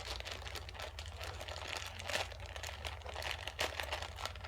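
Plastic packaging crinkling and rustling in irregular short crackles as a wrapped dog shirt is handled and opened, over a low steady hum.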